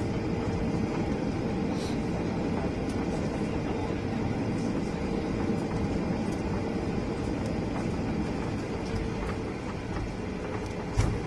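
Boeing 777 jet engines running: a steady drone over a low rumble, with one short thump near the end.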